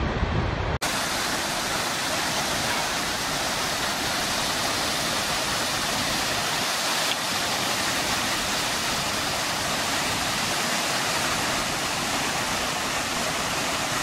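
Water cascading over rocks in a close small waterfall, a dense, steady rushing hiss. It begins with under a second of deep low rumble that cuts off sharply.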